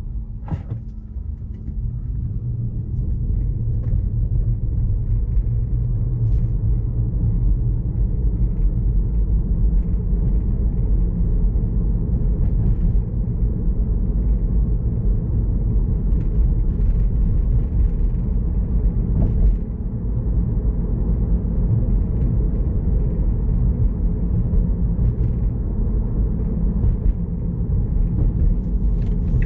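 Low road and tyre rumble inside the cabin of a Tesla Model 3 electric car, with no engine note. It is a little quieter for the first couple of seconds as the car pulls away from a stop, then holds steady as it drives on.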